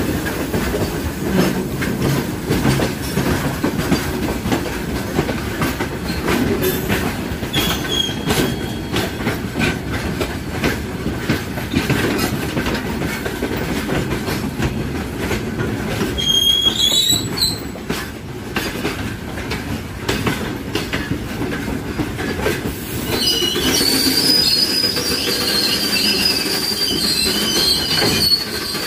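Moving trains running side by side, heard from an open coach doorway: a steady rumble of steel wheels on rail with rapid clickety-clack. High wheel squealing rises briefly about halfway through and comes back, held, for the last five seconds or so.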